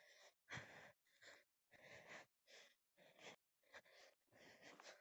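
Faint heavy breathing close to the microphone: a run of short, uneven breaths in and out, nearly two a second, with brief silent gaps between them.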